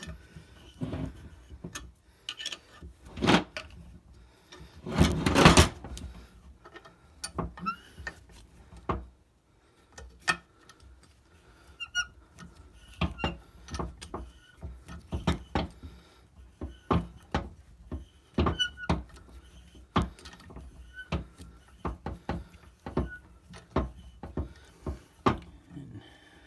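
Spark plug thread-repair tap being backed out of the spark plug hole in a Ford 5.4L cylinder head with a ratchet: a run of irregular clicks with occasional light squeaks, and a louder burst of noise about five seconds in.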